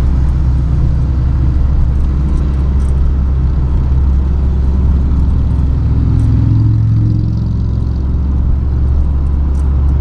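Mitsubishi L300 van cruising on a highway, heard from inside the cab: a steady low drone of engine and road noise. A pitched hum swells briefly about six seconds in, then fades.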